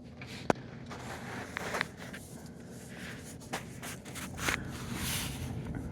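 Shuffling with scattered light clicks, taps and scrapes, the sounds of hand and tool work under a truck during an oil change, over a faint steady low hum.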